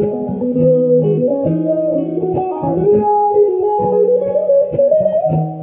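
Guitar playing an instrumental passage between sung lines: a moving melody over held low bass notes.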